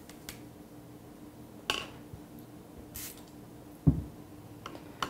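Painting tools being handled at a plastic watercolour palette: a few brief clicks and a short hiss, then one dull knock about four seconds in, over a low steady hum.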